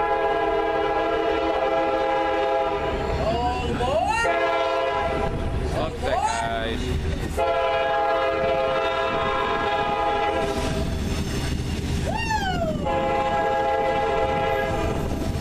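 CSX diesel locomotive's air horn, a chord of several notes, blowing a long, a long, a short and a long blast as the train approaches. This is the pattern sounded for a grade crossing. A low engine rumble lies underneath.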